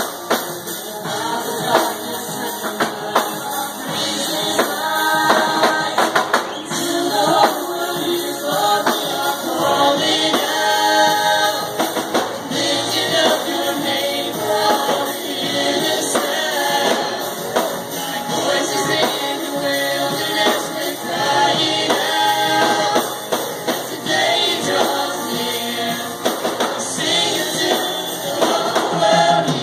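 Live church worship band playing a Christian rock song, with drum kit, guitar and keyboards and voices singing along.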